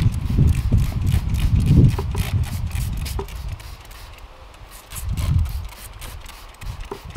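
A trigger spray bottle is squeezed again and again, each pull giving a short spritzing hiss with a click of the trigger, about three a second, over a low rumble.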